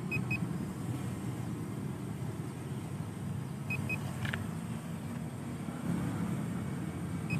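A motor vehicle engine runs with a steady low rumble. A short, high double beep sounds three times, about three and a half seconds apart.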